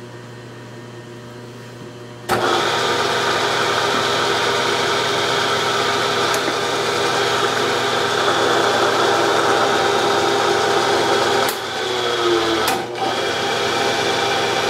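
Bridgeport milling machine's spindle motor switched on about two seconds in, running steadily in low range while the spindle power-taps a hole. Near the end the sound briefly drops and picks up again as the spindle is flipped into reverse to back the tap out.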